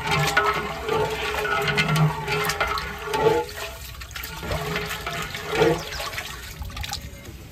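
Water sloshing and splashing in a large aluminium deg as rice is stirred through it with a long-handled metal ladle, in repeated strokes that ease off about seven seconds in.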